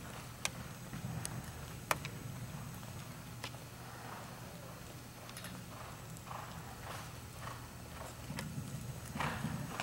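Horse cantering on sand arena footing, its hoofbeats soft and muffled, over a steady low hum, with a few sharp clicks scattered through the first few seconds.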